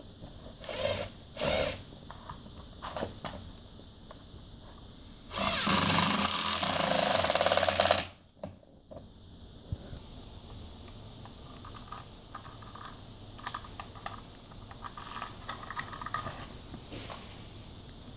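18-volt Ryobi cordless impact driver driving a screw into a couch foot: two short trigger pulls near the start, then one loud run of about three seconds midway. Scattered clicks and brief bursts follow near the end.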